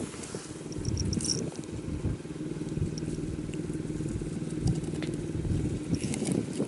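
An engine running steadily, a low even hum, with a few light clicks and faint short high chirps over it.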